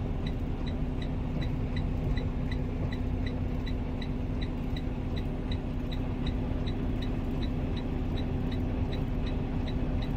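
Semi truck's diesel engine running steadily at low speed, a constant low hum and rumble heard inside the cab, with a faint regular ticking about three times a second.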